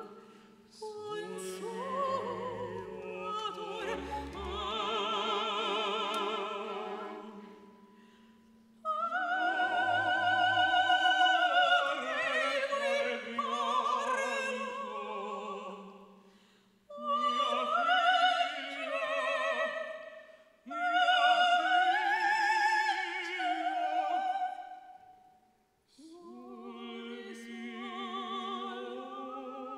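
Operatic singing with strong vibrato, in several long phrases broken by brief pauses.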